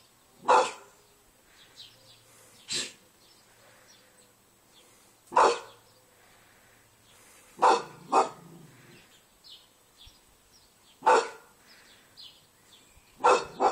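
English bull terrier barking: single loud barks a few seconds apart, about eight in all, with two quick barks in a row about eight seconds in and again near the end.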